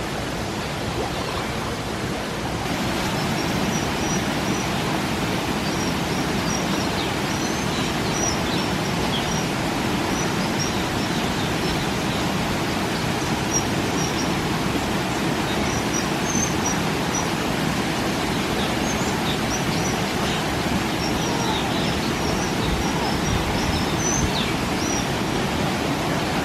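Small birds chirping, many short high calls, over a steady rushing background noise.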